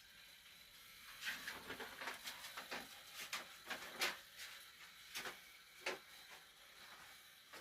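A string of irregular light clicks and knocks, about a dozen over five seconds, the loudest about four seconds in, over a faint steady hiss.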